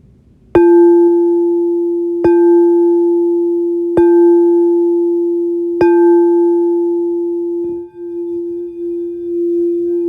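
A singing bowl struck four times about a second and a half apart, each stroke ringing out at the same low pitch with a few higher overtones and slowly fading. Near the end it gives a sustained, wavering hum at the same pitch.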